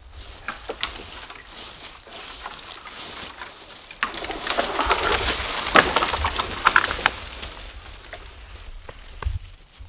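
Dry leaf litter crunching and rustling underfoot, with scattered crackles, building to a loud, dense crunching about four seconds in that lasts a few seconds before easing off.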